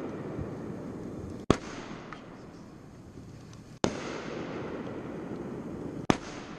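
Aerial fireworks bursting: three sharp bangs a little over two seconds apart, each followed by a long, fading rush of noise.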